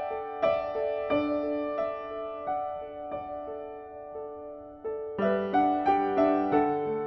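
Gentle solo piano background music, single notes and chords ringing and fading, growing fuller about five seconds in.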